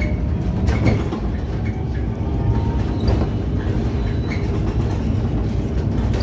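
Cabin noise inside a moving electric city bus: a steady low rumble of road and tyres, with rattles and a couple of knocks about a second in and again after three seconds.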